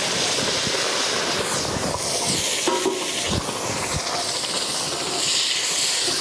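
Boiling water poured slowly onto ghee-roasted semolina in a hot metal kadai, hissing as it steams. Partway through the pouring stops and a ladle stirs the mix, knocking a few times against the pan.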